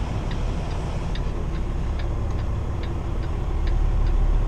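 Kenworth T680's diesel engine running low and steady at backing speed, getting a little louder near the end, with a steady clicking about twice a second from the cab's flasher relay.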